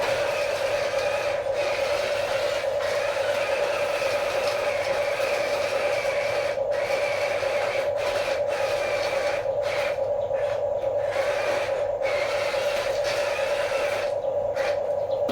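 Small electric motor and plastic gearbox of a radio-controlled toy construction vehicle whining steadily at one pitch, with a rasping grind of the gears.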